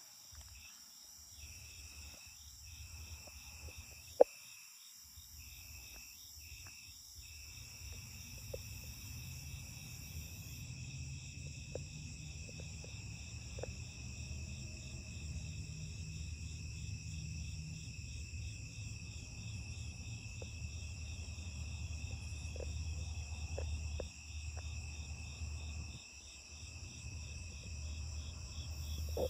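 Night insects, crickets among them, trilling steadily in several high layers, one of them pulsing rapidly, over a low rumble. A sharp click comes about four seconds in.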